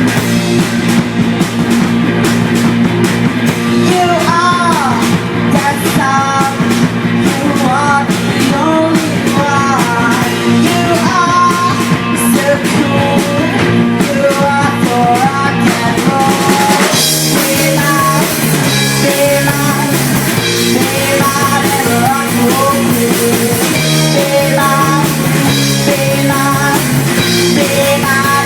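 Rock song with drums, guitar and a singer. About halfway through, the band comes in harder and fuller, with crashing cymbals under the vocal.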